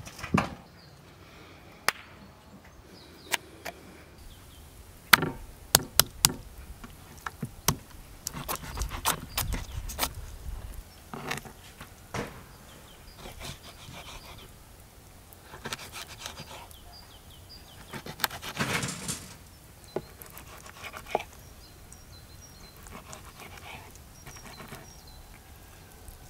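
Kitchen knife cutting raw chicken on a wooden board: an irregular series of sharp knocks as the blade strikes the wood, with quieter stretches between.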